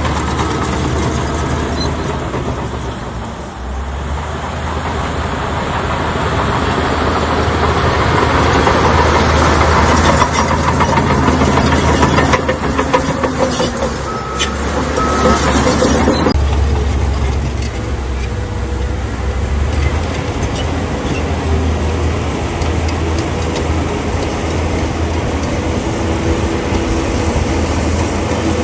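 Crawler bulldozer's diesel engine running steadily, with clanking and knocks from its tracks and the stone it is pushing. The sound changes abruptly about halfway through.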